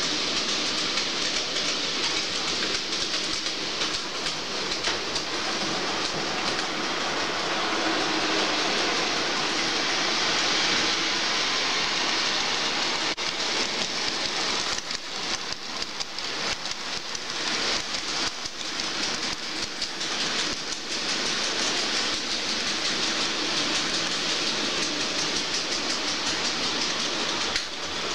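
N gauge model Class 25 diesel locomotive and parcels train running on the layout's track: a steady hissing whir from the model's motor and wheels, with a stretch of light clicking about halfway through as the wheels run over the rail joints.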